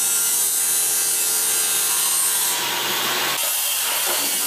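Loud, steady hissing and grinding noise of steel being worked on steel frames. About three and a half seconds in it changes to the crackling hiss of an electric arc welder.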